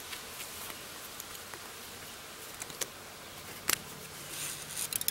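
Small clicks and rustles of a sewing needle being drawn through woven trampoline mat fabric with needle-nose pliers, over a steady background hiss. A faint low hum comes in about two-thirds of the way through.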